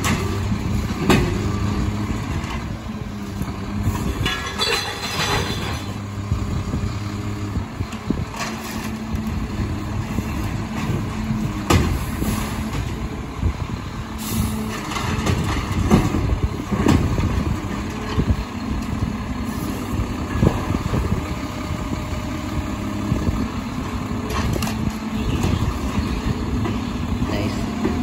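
Mack automated side-loader garbage truck working at the curb. Its engine runs steadily and changes revs, with a brief higher-pitched whine about five seconds in and several sharp bangs and knocks from the arm and carts.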